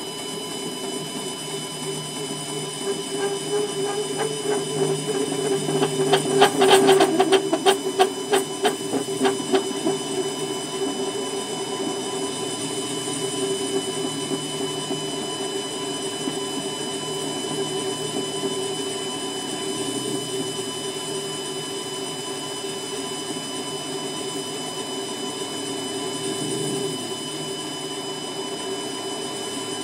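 7x12 mini lathe running steadily with a motor whine while a parting tool cuts into a spinning stainless steel bar. About six seconds in, a stretch of rapid ticking lasts a few seconds and is the loudest part.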